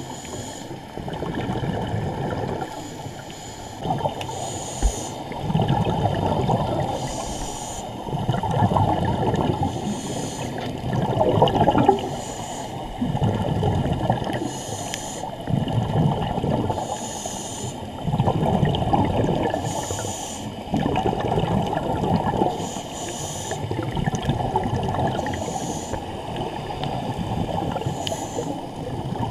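Scuba diver breathing through a regulator underwater: a short hiss of each inhalation alternates with a longer rush of exhaled bubbles, repeating every two to three seconds.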